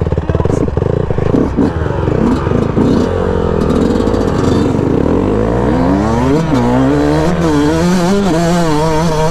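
Two-stroke dirt bike engine, a Yamaha YZ125, revving hard and accelerating in a drag race. Its pitch climbs and drops back several times in the second half as it works up through the gears.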